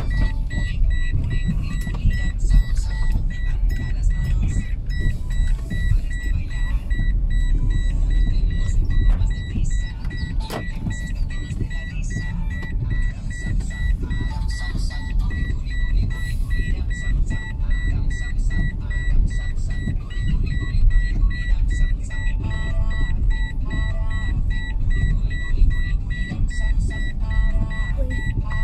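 Car cabin noise while driving slowly on a wet road: a steady low rumble of engine and tyres, with a thin, steady high-pitched tone running underneath.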